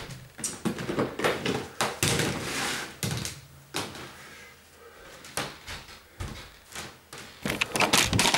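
Irregular knocks, clicks and rustling of household items being handled and set down, with a quieter stretch midway and a quick run of sharp clicks near the end.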